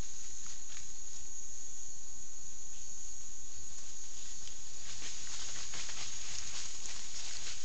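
Peccaries shuffling and rooting through dry leaf litter, a scatter of crackling rustles that grows busier about five seconds in, over a steady high insect hiss.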